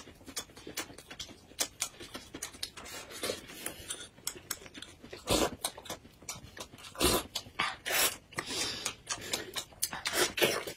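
Close eating noises: wet lip smacks, slurps and chewing as kiwifruit is peeled and eaten and a drink is spooned from a cup. A steady run of short clicky mouth sounds, with louder smacks about five, seven and eight seconds in and again near the end.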